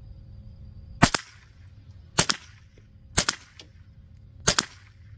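.22 LR rifle fired four times, about a second apart, each a sharp crack with a short fading tail.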